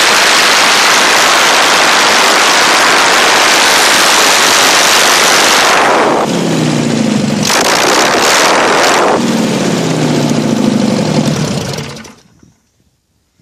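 Air-cooled Volkswagen flat-four engine turning a propeller, running loud with strong propeller wind on the microphone. About six seconds in it drops to lower revs, its tone falling, and about twelve seconds in it is shut down and goes quiet.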